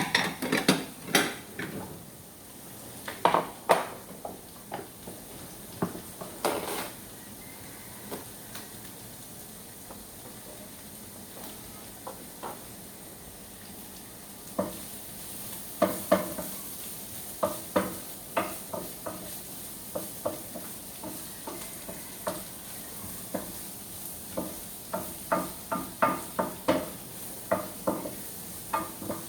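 Cooking utensil knocking and scraping against a pan over a steady frying sizzle. Clusters of knocks come in the first few seconds, then a quieter stretch of sizzle alone, then knocks again, about two a second in the last few seconds.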